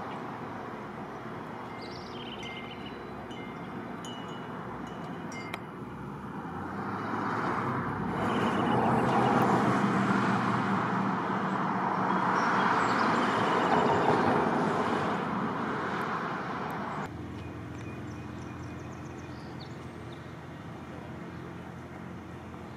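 Outdoor traffic noise: a vehicle passing, its sound swelling over several seconds and then dropping away, over a low steady hum.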